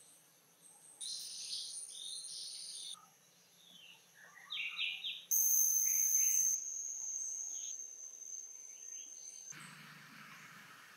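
Forest ambience: birds chirping in short calls, with insects droning in high, steady tones. The loudest drone starts suddenly about five seconds in and fades over the next few seconds.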